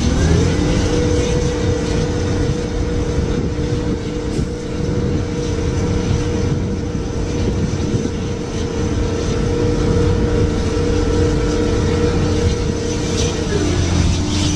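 Mobile crane's engine running at raised revs while lowering a cap over a burning gas well: a steady two-tone drone that climbs just after the start, holds, and drops about 13 seconds in, over the low rumble of the gas fire.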